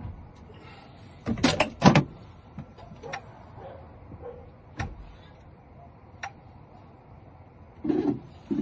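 Scattered sharp clicks with two loud clacks about a second and a half in, and a short cluster of knocks near the end: hard objects being handled, such as tools or a key being set in or taken out of a key machine.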